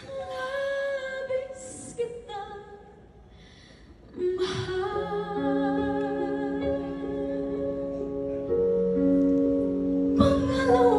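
A woman singing a Tagalog ballad live with band accompaniment. The voice is softer for a couple of seconds, then swells from about four seconds in over held chords.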